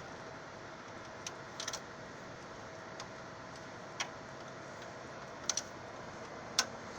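Sparse light clicks and taps of hand tools on aircraft brake-line fittings, about half a dozen spread over several seconds, over a steady background hum with a faint thin tone.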